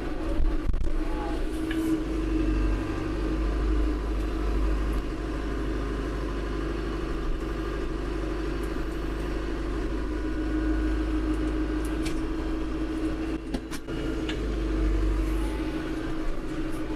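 Branson compact tractor's diesel engine running steadily as it works its front-loader root grapple on a stump, with a few short sharp clicks about two-thirds of the way in.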